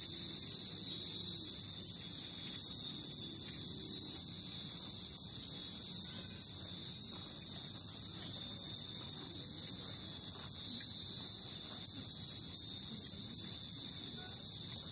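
A steady, high-pitched insect buzz, typical of cicadas in midsummer, runs throughout. Furin wind chimes ring lightly now and then over it, with a couple of faint strikes in the second half.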